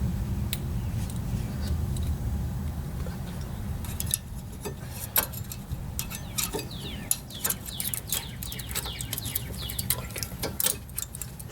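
Sharp metallic clicks and clinks of brake pad clips and pads being handled and pressed into a caliper bracket, coming thick and irregular from about a third of the way in. A steady low hum sits under the first few seconds, and a few short falling chirps sound near the middle.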